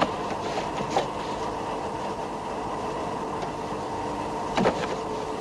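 Steady machinery hum inside a submarine's escape chamber, with a few short knocks, the loudest a double knock near the end.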